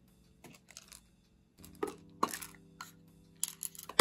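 Small screws and parts handled on a table: light, irregular clicks and taps, over a faint steady hum from about halfway through.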